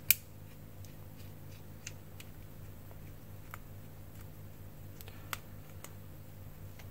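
Small tools clicking and tapping against a GoPro Hero5 Session's casing as its SD card section is worked loose: one sharp click at the start, then scattered faint ticks.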